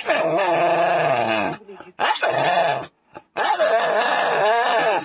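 A dog howling: three long, wavering howls that rise and fall in pitch, the last one cutting off suddenly.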